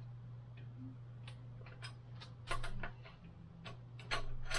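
Irregular metallic clicks and ticks from tools and parts as a mountain bike's crank is worked loose in a repair stand, with a few louder clicks near the middle and end, over a steady low hum.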